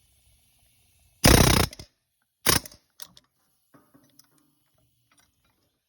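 Pneumatic air hammer fired in two short bursts, the first about half a second long and the second shorter, driving the fan clutch wrench to break the 47 mm fan clutch nut loose. A few faint metallic clicks follow.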